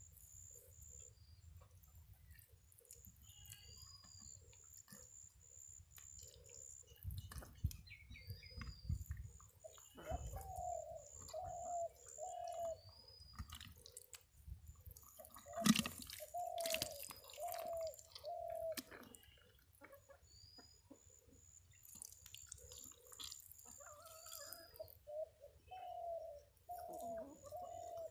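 Wet squelching and dripping of mud and water as a hand digs into a waterlogged hole. Over it a dove coos in short series of three or four notes several times, and small birds chirp.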